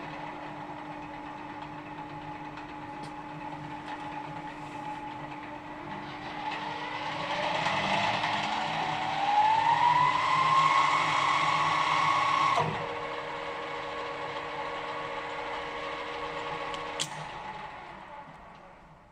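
Alzmetall AB35 S pillar drill running with a steady gear whine, then a whine rising in pitch and getting louder from about six seconds in, holding high until it breaks off sharply near thirteen seconds. The drill then runs on at a lower, steady tone, a click sounds near seventeen seconds, and it runs down to quiet.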